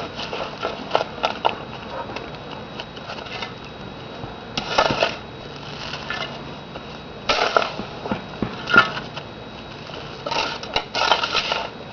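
Several short bursts of scraping and rustling a couple of seconds apart, with light clicks in between.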